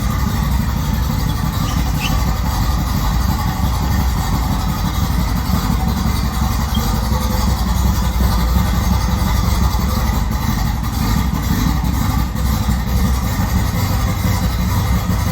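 Newly installed 1776cc air-cooled VW flat-four in a Beetle running steadily on its first run, with no revving.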